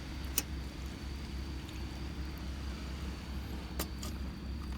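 Steady low rumble of surf under a steady high insect trill, with two sharp crackles from the wood campfire, one about half a second in and one near the end.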